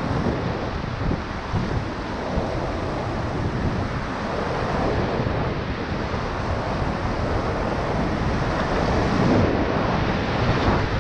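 Loud, steady rush of whitewater as a raft runs a rapid on the Middle Ocoee River, mixed with wind on the microphone.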